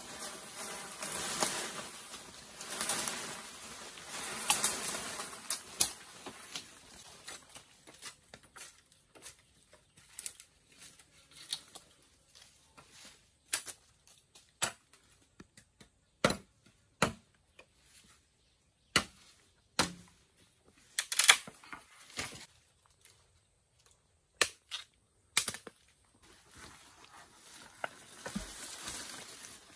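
Sharp knocks and clicks at irregular intervals, some loud and some faint, with a rustling, scraping noise in the first few seconds and again near the end.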